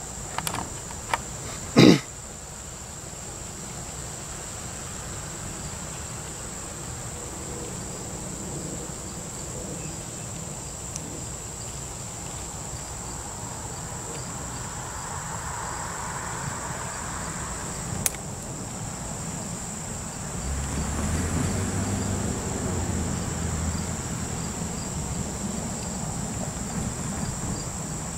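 Insects, crickets, droning steadily in one high continuous tone. A few sharp knocks come in the first two seconds, the loudest about two seconds in. From about twenty seconds in, the low engine rumble of a diesel locomotive swells as it approaches slowly.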